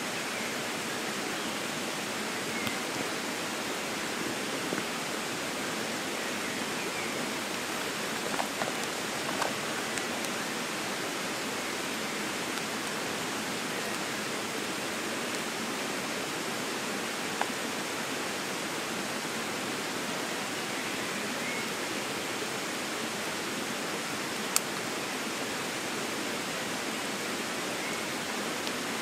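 Steady rain falling on the forest's leaves and undergrowth, a constant even hiss. A few faint taps sit over it, with one sharp click late on.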